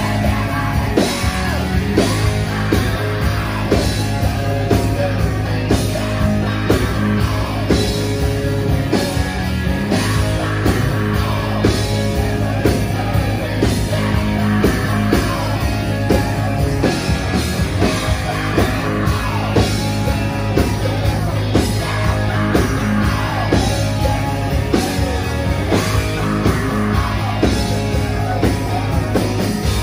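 Hard rock band playing live: electric guitars, bass and drums driving a steady beat, with a male voice singing at times.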